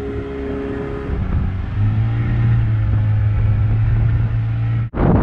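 Motor-powered boat engine running under throttle, its pitch shifting about a second in to a deeper, steadier drone. It cuts off abruptly near the end.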